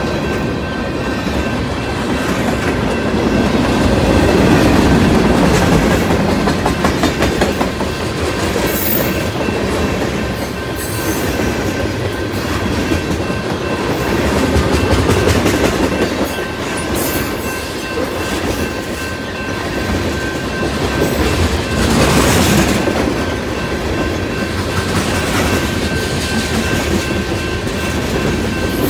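Freight train's tank cars and covered hoppers rolling past at close range: a steady rumble of steel wheels on rail, swelling and easing as the cars go by, with wheels clicking over rail joints and a few sharper clanks.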